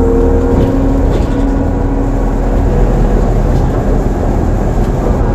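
Ikarus 412GT trolleybus under way: the whine of its electric traction drive rises slowly in pitch over the first two seconds as it gathers speed, then gives way to a steady running noise with a low rumble.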